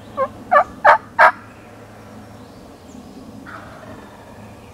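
Four loud, short turkey calls in quick succession, about three a second, each a little louder than the last.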